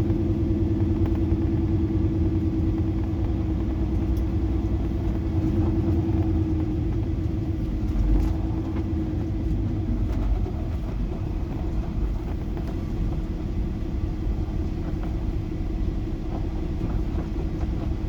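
Semi-truck's diesel engine running low and steady at parking speed. A humming tone in the engine note fades out about halfway through.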